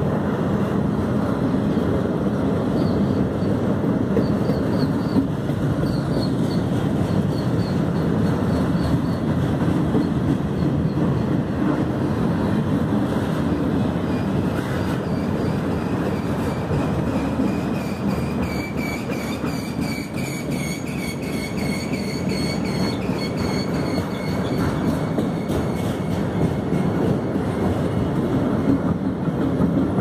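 Autorack freight cars rolling past on the rails: a steady rumble of wheels on track. Faint high squeals from the wheels come in a few seconds in and again past the middle.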